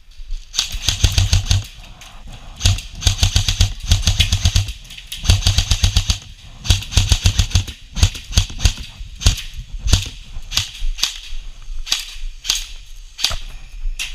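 Airsoft guns firing indoors: several long, rapid full-auto bursts, then shorter bursts and single shots.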